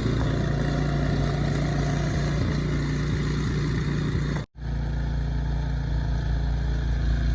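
An engine running steadily with a low hum and broad noise over it, cut off abruptly for a split second about four and a half seconds in, then running on.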